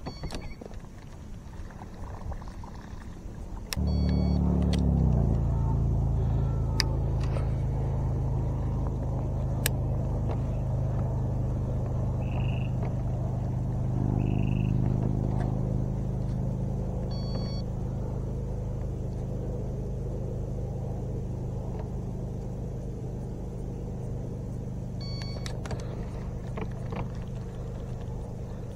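A motor starts abruptly about four seconds in and then runs steadily with a low hum, its pitch settling just after it starts. A few light clicks are heard over it.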